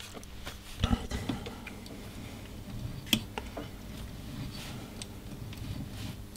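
A few faint clicks and taps from hand work on an Icom IC-201 transceiver as its main tuning knob is turned, over a low steady hum.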